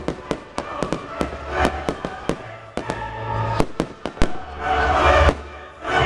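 Fireworks display: a rapid, irregular series of sharp bangs and crackles from bursting shells and rockets, with music playing underneath.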